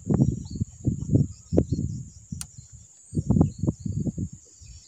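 Insects buzzing steadily at a high pitch, overlaid by irregular, louder low bumps and rumbles, with a single sharp click about halfway through.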